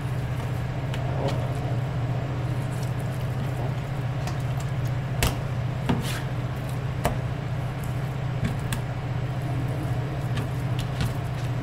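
Chef's knife slicing raw chicken breast on a plastic cutting board, with a few sharp taps of the blade against the board about midway. A steady low hum runs underneath.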